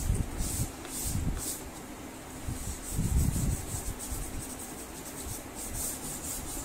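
Blue pastel stick rubbing across drawing paper in quick back-and-forth colouring strokes, about two or three a second, laying in a background. A couple of dull low thuds come near the start and about three seconds in.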